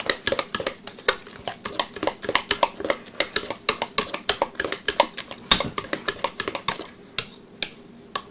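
A spoon stirring thick bread dough in a stainless steel mixing bowl, knocking and scraping against the bowl's sides in quick, irregular clicks several times a second. The knocks thin out after about seven seconds.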